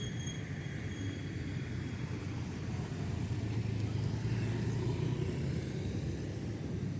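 Road traffic passing: car and motorbike engines and tyre noise in a steady low rumble, swelling as a vehicle goes by about four to five seconds in.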